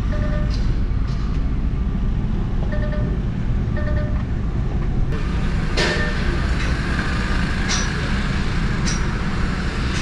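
Steady low rumble of site machinery, with a vehicle's reversing alarm beeping a few times in the first half and a few sharp metallic clanks in the second half.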